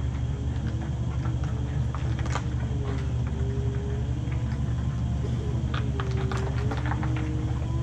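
Zamboni ice resurfacer driving up, its engine running with a steady low rumble and a fainter whine that rises and falls in pitch, with a few scattered clicks.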